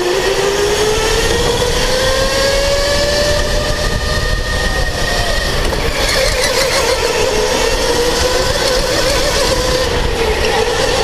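Electric go-kart motor whining, its pitch rising as the kart gathers speed, fading briefly around four to five seconds in as it slows for a turn, then climbing again. Under it runs a steady rumble of the kart running over the concrete track.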